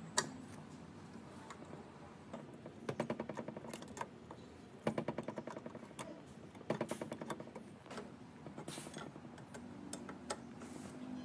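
Ratcheting wrench clicking in three quick runs, about nine clicks a second, as it works the nut on a bench grinder's rusty tool-rest bracket, with a few single metal clicks between.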